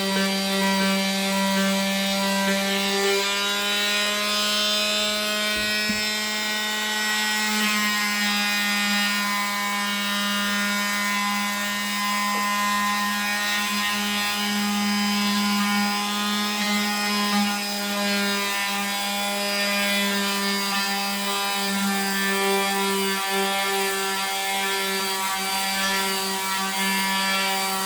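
Oscillating multi-tool running steadily, its pad or blade working against wood, with a high buzzing hum that wavers slightly in pitch as it is pressed into the work.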